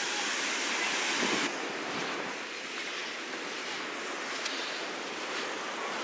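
Steady wash of surf from a rough sea breaking on a sandy shore, a little louder for the first second and a half and then slightly softer.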